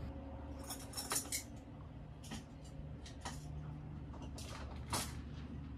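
Onboard ambience on a sailing catamaran: a steady low hum with scattered light clinks and ticks, about eight of them, a slightly louder one near the end.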